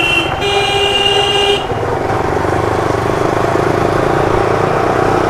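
A vehicle horn honks twice: a short toot that stops right at the start, then a second one lasting about a second. After that comes the steady running noise of a motorcycle on the road.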